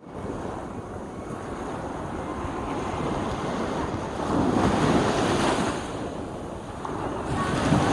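Small waves washing up a shallow beach. One wave surges in louder about halfway through, and another builds near the end.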